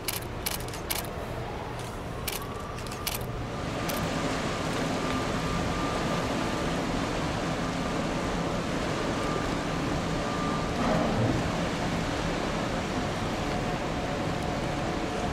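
A few sharp camera-shutter clicks in the first few seconds. Then a steady rushing noise with a faint high whine sets in as the cruise ship Norwegian Breakaway passes close by.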